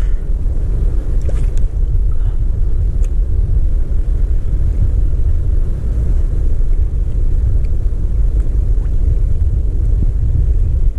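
Wind buffeting the camera microphone: a loud, steady low rumble, with open sea behind it.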